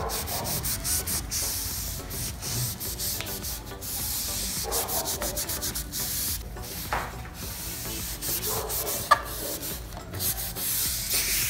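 Cloth with detergent scrubbed quickly back and forth along a Jeep Renegade's rubber door-seal channel, a rapid run of rubbing strokes with a couple of short squeaks.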